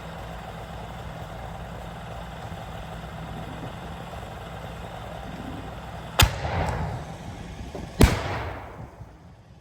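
A vehicle engine running steadily, then two loud bangs about two seconds apart, each trailing off in a fading rush: rocket launches from an airsoft Katyusha truck.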